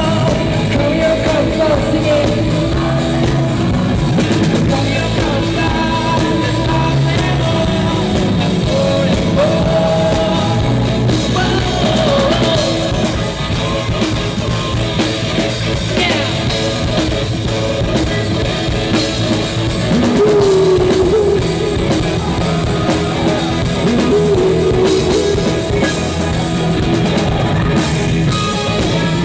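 Rock band playing live: drum kit, electric guitars and bass, with a singer's voice over them.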